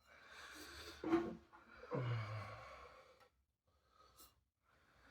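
A man's breathy sigh, with a short voiced hum about two seconds in, followed by faint quiet noises.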